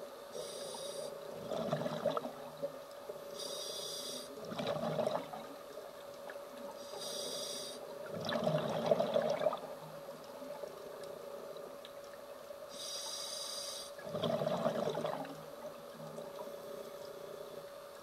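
Scuba diver breathing through a regulator underwater: four breaths, each a brief hissing inhale followed by about a second of bubbling exhaust, over a steady hum.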